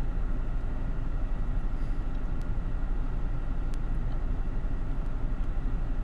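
Steady low rumble of a car idling, heard from inside the cabin, with a few faint clicks.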